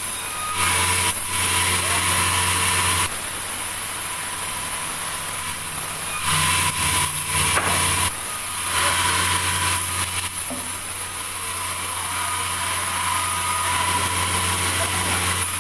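Sawmill machinery running steadily with a low hum and a high whine, getting louder and harsher in several stretches of a few seconds, once near the start and twice around the middle.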